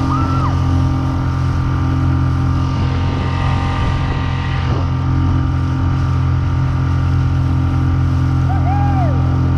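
Outboard motor pushing a small inflatable boat along at a steady cruising speed of about 13 miles an hour, with wind and water noise. Two brief chirps that rise and fall in pitch, one near the start and one near the end.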